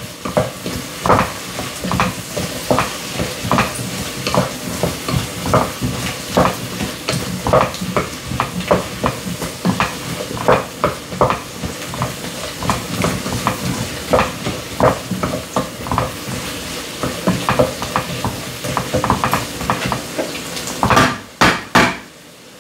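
A spoon stirring a sizzling pot of stew base with tomato paste cooking in it, knocking and scraping against the pot a few times a second. A few louder knocks come near the end, then the sound drops away sharply.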